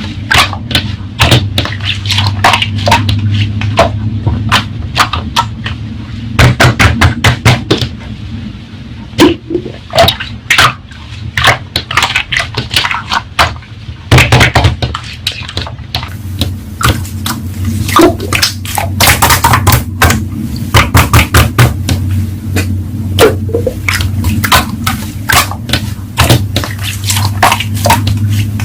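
Slime being squeezed, pressed and stretched by hand: a steady stream of sticky clicks and small pops, coming in quick clusters.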